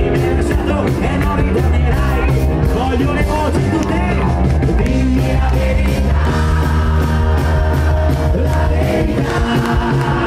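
Live rock band playing with a steady drum beat and a male lead singer.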